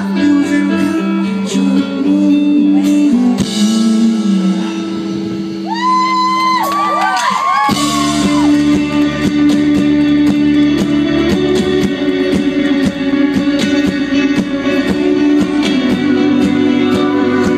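Live rock band playing with guitar and singing; about eight seconds in the music fills out with deep bass.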